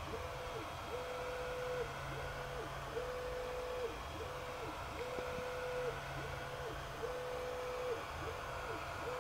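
Stepper motors of a Creality Falcon 5W laser engraver whining as the laser head runs the framing outline of the job round and round. Each side of the rectangle gives a steady tone, alternating longer and shorter runs, with a short slide in pitch at every corner, about one loop every two seconds.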